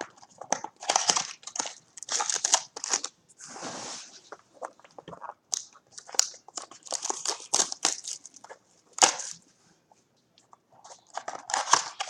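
Trading-card packs and their cardboard box being handled and unpacked, with irregular crinkling and crackling of wrappers and card stock and a short rustle about four seconds in.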